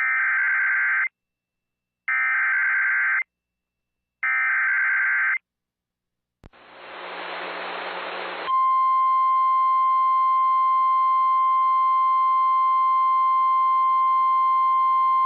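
Three short screeching bursts of EAS SAME header data, about two seconds apart, open the next weather alert. About six seconds in there is a brief hiss of static, and then a single loud, steady, high tone begins and holds: the NOAA Weather Radio 1050 Hz warning alarm tone.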